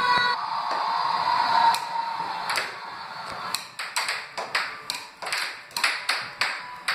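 Air hockey puck and mallets clacking: a quick, irregular run of sharp hits as the plastic puck is struck back and forth and knocks off the table's rails, getting busier about two seconds in.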